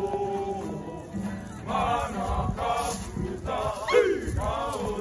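A kapa haka group singing a Māori waiata-ā-ringa (action song) in unison, with a loud shout about four seconds in.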